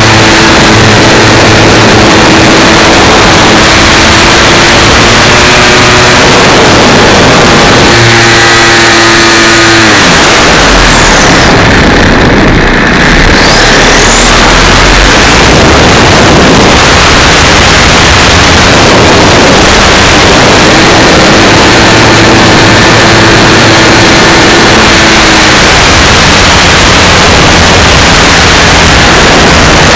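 55cc two-stroke gas engine of a large radio-control aerobatic plane running in flight, heard very loud and close through a wing-mounted camera, with rushing air. Its steady drone drops in pitch about nine seconds in as the throttle comes back. For several seconds it is mostly air noise, then the engine note returns about twenty seconds in.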